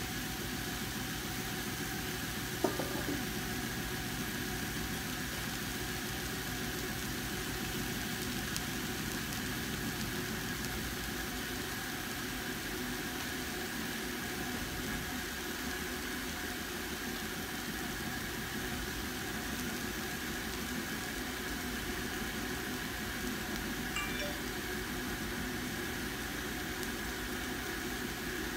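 A steady mechanical hum with a faint high whine, and one brief click a little over two seconds in.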